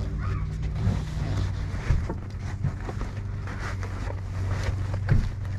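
Stiff floor-liner pieces being pushed and handled inside a Jeep's cabin, with rustling and scraping and a few sharp knocks, the loudest a little after five seconds in. A steady low hum runs underneath.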